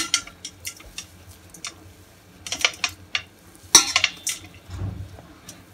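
Hands pressing and folding crumbly balushahi dough in a metal bowl without kneading: soft scattered clicks and scrapes of fingers against the bowl, busiest between about two and a half and four seconds in, with a dull thump near the end.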